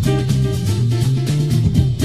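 Background music with a steady drum beat and a moving bass line.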